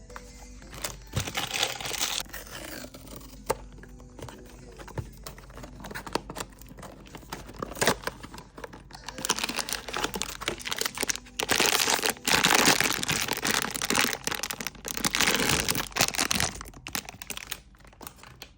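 Blind box packaging being torn open and crinkled by hand, in several bursts of tearing and rustling with scattered clicks between them.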